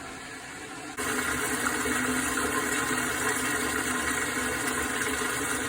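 Urinal flushing without stopping: water rushes steadily through the flush valve into the bowl, growing suddenly louder about a second in. The urinal is stuck running, continuously flushing.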